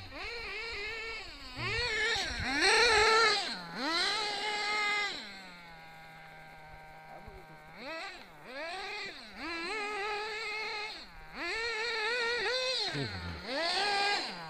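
Nitro engine of an RC buggy revving up and down in repeated rising and falling bursts. It settles to a steady idle for a couple of seconds midway, then revs hard again and drops back to idle near the end.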